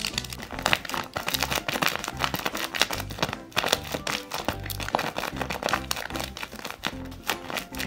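Paper crinkling and crackling in quick, irregular snaps as a paper blind bag is handled, over background music with a steady low beat.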